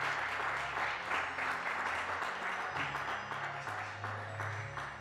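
Audience applauding, the clapping thinning out toward the end, over background music with a low bass line.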